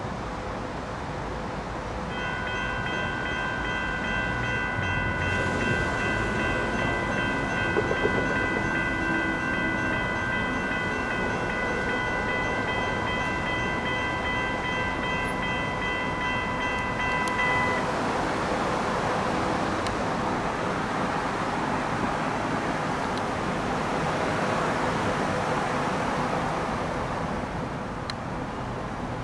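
Railroad crossing warning bell starting to ring as the signals activate and the gates lower, then cutting off suddenly after about fifteen seconds. After it, a steady rushing noise of a train passing the crossing.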